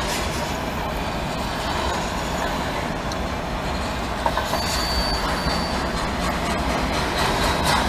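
Freight train of autorack cars rolling past at speed: a steady rumble of steel wheels on rail with some clickety-clack, and a brief thin wheel squeal about halfway through.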